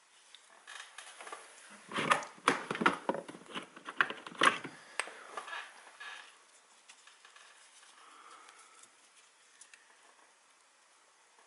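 Clicks, taps and rustling of small plastic and metal clock-motor parts and wires being handled. The handling is busiest from about two to five seconds in, then dies down to a few faint ticks.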